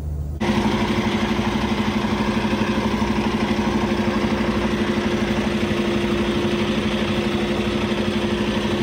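Semi-truck tractor's diesel engine idling steadily with an even, fast pulsing throb, cutting in abruptly just after the start.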